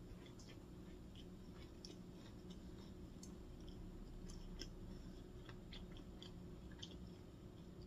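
Faint close-miked chewing with the mouth closed: soft, irregular small clicks and crunches of food in the mouth, over a low steady hum.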